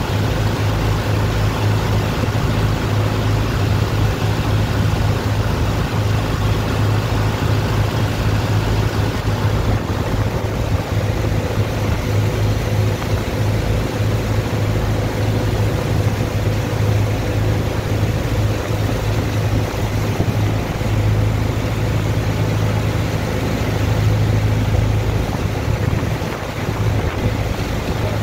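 Dredger's pumping engine running steadily, a constant low hum, with the rush of water jetting from hoses onto wet sand.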